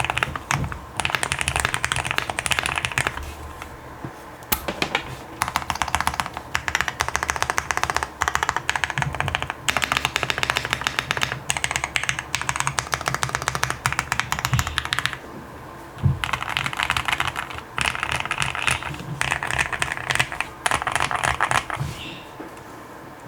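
Typing on a Qwertykeys QK65 custom mechanical keyboard with L+F Tealios V2 linear switches lubed with 205g0, an FR4 plate and case and plate foam. The typing comes in fast bursts of keystrokes with short pauses between them, and a few heavier single strokes stand out.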